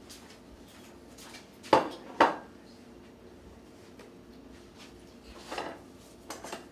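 A plate and utensils are handled on a kitchen counter. Two sharp knocks about half a second apart, like a plate and serving tongs being set down, then a few softer clatters near the end.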